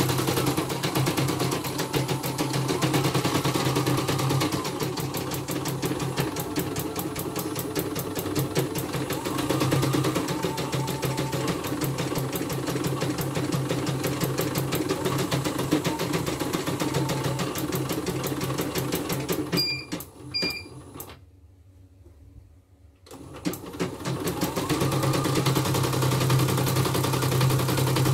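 CNY E960 computerized embroidery machine stitching at speed: a rapid, steady needle clatter over a low hum. About twenty seconds in it stops with two short beeps at the change to the design's second colour. It is quiet for about two seconds, then starts stitching again.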